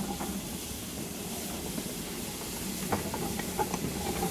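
Steady hiss of steam from a standing steam locomotive, with a few light clicks in the second half.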